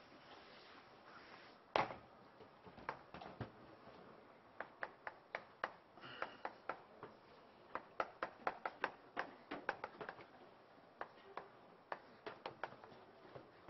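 Chalk tapping and clicking against a chalkboard as characters are written, a quick irregular run of sharp taps, with one louder knock about two seconds in.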